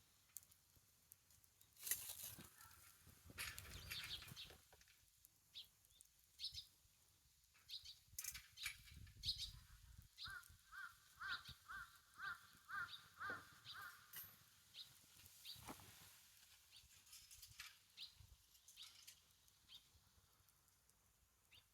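Wood fire crackling with scattered sharp pops. A bird calls a quick series of about ten short notes starting about ten seconds in.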